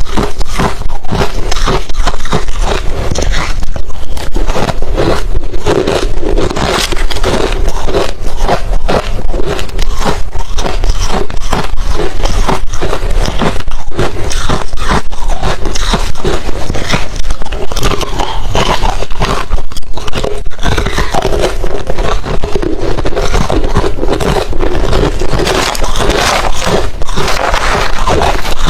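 Hard refrozen crushed ice being bitten and chewed close to the microphone: loud, rapid, continuous crunching.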